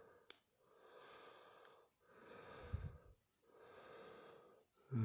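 Slow, even breathing close to the microphone, about one breath every second and a half. A couple of small sharp clicks come from the lock pick working in the padlock, and there is a short low bump near the middle.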